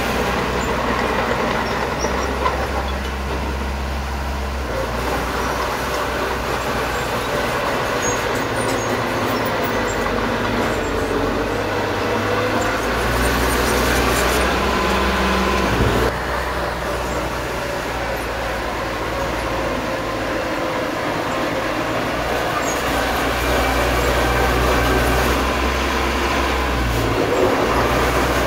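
Small crawler bulldozer's diesel engine running under load as it pushes loose dirt, its low rumble shifting several times with the load, over a steady wavering whine. A single sharp knock sounds about halfway through.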